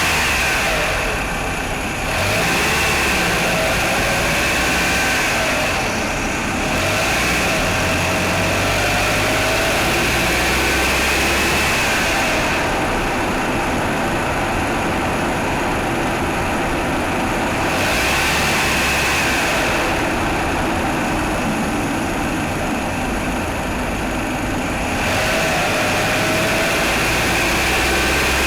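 Mitsubishi Outlander's 4G63 four-cylinder engine running steadily at idle. This is the engine that knocks on cold start.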